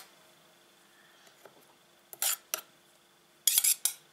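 Two metal spoons scraping and clinking against each other in a plastic tub of mashed berries as a sunken spoon is fished out. There are two short scrapes about two seconds in and a quick run of several near the end.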